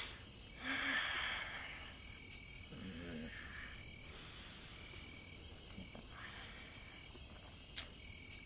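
A man crying quietly into his hands: sniffling, shaky breaths, the loudest about a second in, and a short low whimper a couple of seconds later. Night insects chirp faintly and steadily behind.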